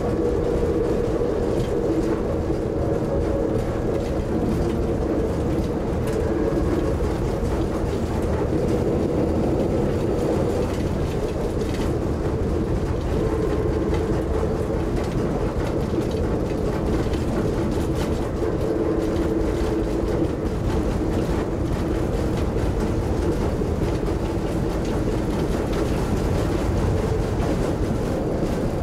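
Nanbu Jūkan Railway rail bus heard from inside the cab while running: a steady engine drone mixed with wheels rumbling on the rails, with occasional faint clicks.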